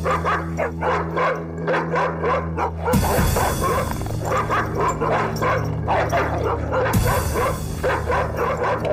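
Dogs barking and yipping rapidly and continuously over a low, tense music drone, with deep booming hits about three seconds in and again about seven seconds in.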